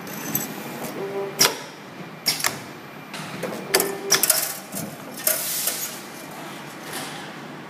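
Automatic steel-rule blade bending machine at work: a series of sharp metallic clacks, two of them in the first half each just after a short motor whir, then a cluster of clacks and a brief hiss about five seconds in.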